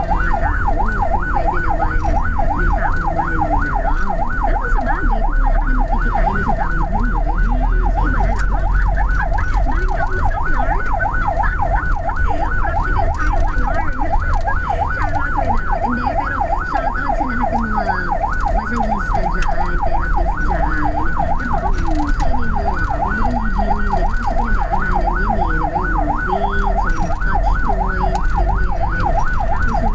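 Ambulance siren on a fast yelp, its pitch rising and falling about three times a second, heard from inside the cab of the responding ambulance over the low rumble of the moving vehicle.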